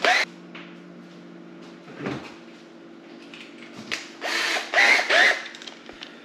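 Power drill run in short spurts, its motor briefly whining up and back down at the start, about two seconds in and twice between four and five and a half seconds, as the bit is changed for the next size up.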